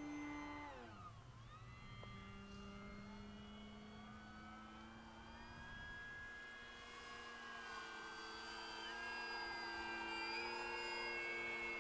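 Electric motor and propeller of an FMS Maule 1500mm RC plane whining in flight. The pitch drops sharply about a second in, then settles into a steady lower tone.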